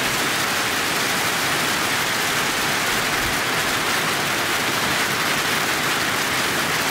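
Freezing rain falling steadily, an even hiss with no let-up.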